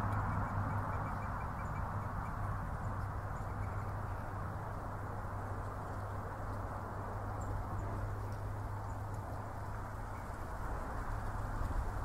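Distant road traffic, a steady low rumble of tyres and engines that eases off mid-way and swells again near the end. A faint rapid chirping trill sounds briefly at the start.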